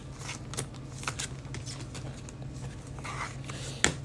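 Faint handling of football trading cards: cards sliding and flicking as they are flipped through, with a few light clicks, the sharpest near the end, over a steady low hum.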